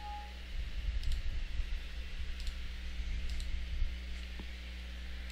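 Steady low electrical hum with a few faint, scattered clicks.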